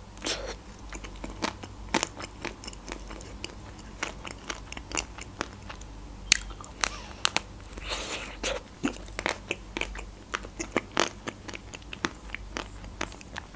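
Close-up eating sounds: biting and chewing a chocolate-coated ice cream bar, the chocolate shell cracking in many sharp, irregular crunches and clicks.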